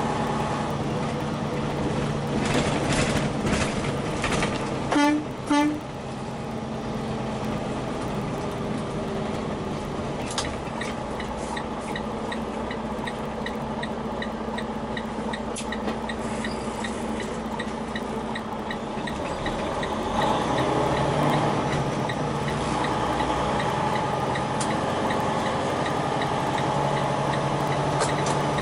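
Semi-truck engine running, heard inside the cab while driving slowly through town. There are two short horn toots about five seconds in, and a turn-signal clicker ticks steadily for several seconds from about ten seconds in as the truck turns.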